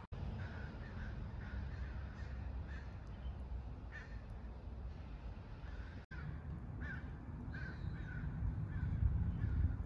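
Birds calling repeatedly in short harsh calls over a steady low rumble. The sound drops out for an instant about six seconds in.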